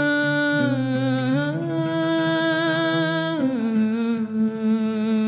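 A woman singing long, wordless held notes with a slight waver: the pitch steps up about a second and a half in, then drops near the end to a final note that she holds.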